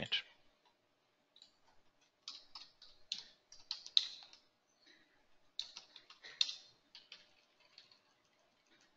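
Faint, light clicking of computer keyboard keys being typed in two short runs, with quiet gaps between.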